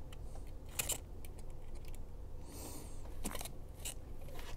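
Quiet hand-handling noises as thin insulated wires are sorted and straightened, with a few small clicks and a brief rustle about halfway through.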